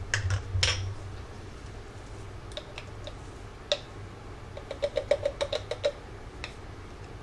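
Small glass spice jar of dried parsley being shaken and tapped over a plastic measuring spoon: a few single light clicks, then a quick run of about ten taps, roughly eight a second, about two-thirds of the way through.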